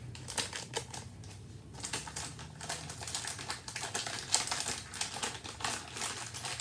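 Pokémon trading cards and a foil booster-pack wrapper being handled: a fast run of light clicks and rustles, sparse at first and thick from about two seconds in.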